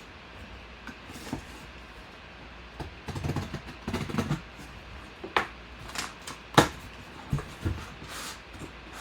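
Packaging being handled and opened by hand: scattered rustling with several sharp clicks and taps, the loudest a little past the middle.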